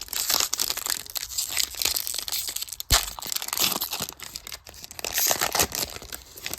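A plastic trading-card pack wrapper crinkles and crackles densely as it is torn open and crumpled, with one sharp knock about three seconds in.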